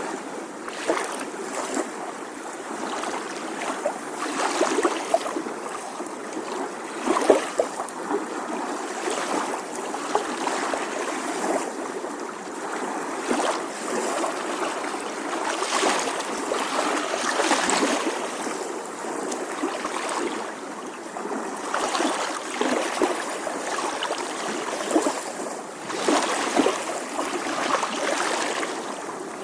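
Small ocean waves lapping gently on a shore, a continuous wash of water with soft splashes and swells every few seconds.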